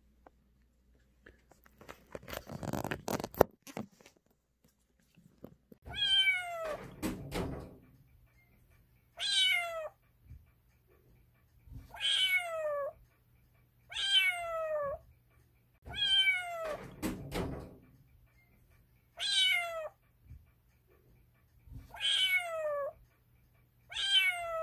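Calico kitten meowing repeatedly, about eight high calls a couple of seconds apart, each one falling in pitch. Before the first call, about two to three seconds in, there is a short burst of scuffling noise with a sharp knock.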